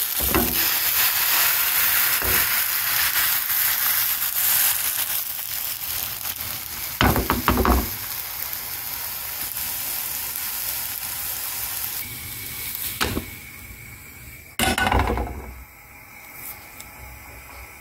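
Thin pancake batter sizzling in a hot non-stick frying pan, a steady hiss that dies away near the end. A cluster of loud knocks comes about seven seconds in, with two more single thumps later.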